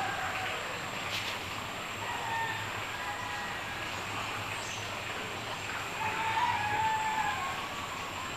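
Steady outdoor background noise with a thin high whine throughout. Short drawn-out bird calls drift in and out, the loudest one about six seconds in.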